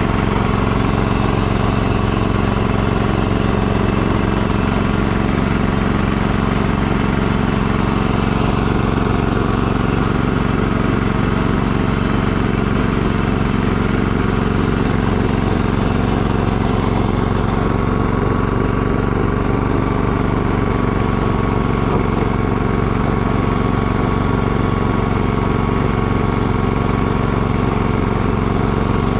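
Gasoline engine of a two-stage snowblower running steadily under load while the auger and impeller throw snow out of the chute.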